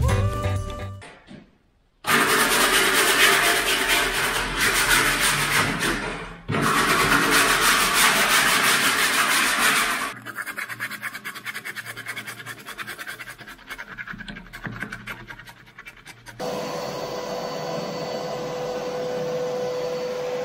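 Hand-sanding a rusty painted window frame with a sanding block: loud scrubbing rasps, then quicker short back-and-forth strokes. Near the end a steady hiss takes over.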